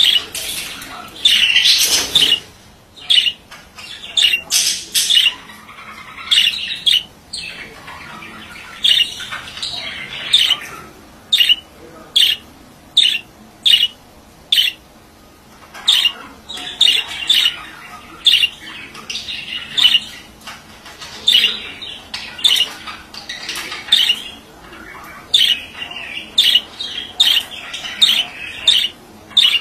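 Male budgerigar chattering: quick runs of short, sharp, high chirps and squawks, in clusters separated by brief lulls.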